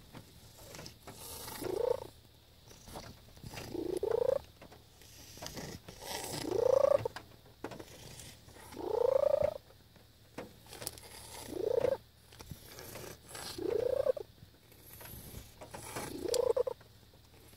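A tabby cat purring really loudly. The purr swells about every two and a half seconds into a surge whose pitch rises, seven times over.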